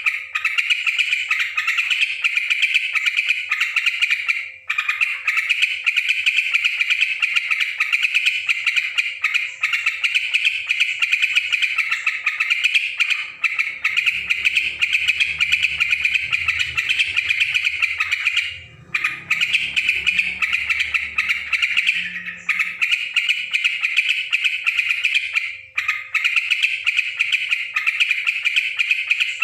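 Sooty-headed bulbul (trucukan) chattering busily and without let-up in rapid, dense chirps, with a few brief pauses.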